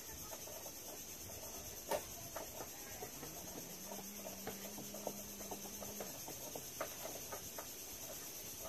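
Quiet outdoor ambience with a steady high-pitched insect drone. A sharp click comes about two seconds in, light ticks are scattered throughout, and a low hum runs for a couple of seconds in the middle.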